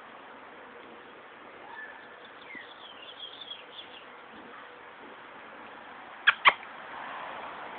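Small birds chirping faintly over a low outdoor hiss, then two sharp clicks in quick succession about six seconds in, much louder than anything else.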